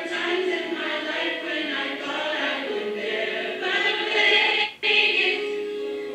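Youth choir of mixed male and female voices singing held notes together through microphones. The sound drops out for an instant about three-quarters of the way through.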